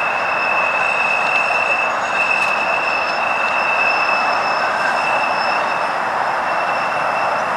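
Flexity Outlook streetcar's steel wheels squealing steadily as the car takes the tight curve of a turning loop, a high-pitched squeal over the rumble of the car rolling on the rails.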